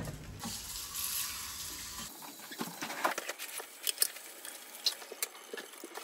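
A kitchen tap running over the metal pieces of a stovetop moka pot as they are rinsed and scrubbed, with scattered light metallic clinks and taps.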